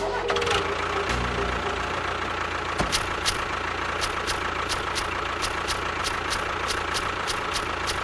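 Small motor of a home-made model tractor or bulldozer running steadily with a thin whine. From about three seconds in it makes a regular clicking, about three clicks a second.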